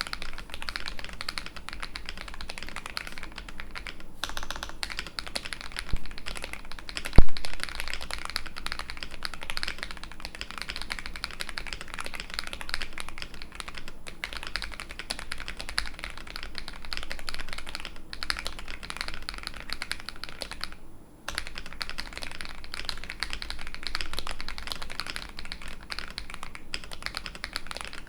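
Fast continuous typing on a mechanical keyboard fitted with Akko V3 Cream Yellow linear switches, a sound the reviewer calls very creamy and thocky. One louder knock stands out about 7 seconds in, and the typing pauses briefly about 21 seconds in.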